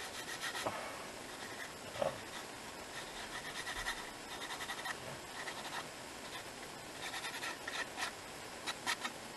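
Fingers rubbing and brushing across a small piece of stamped paper card, in several short runs of quick, dry, scratchy strokes with a few light ticks.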